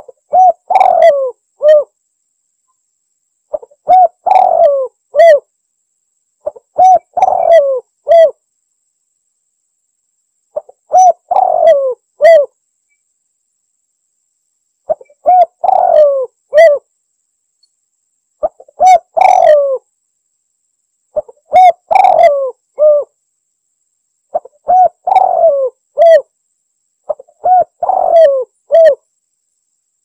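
Spotted dove (tekukur) cooing, a lure call for attracting doves. A short phrase of several coos is repeated about every three seconds, with silence between the phrases.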